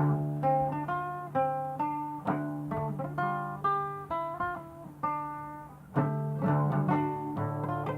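Guitar played solo: single notes picked one after another over a low ringing bass note, each note fading before the next. A louder attack comes about six seconds in.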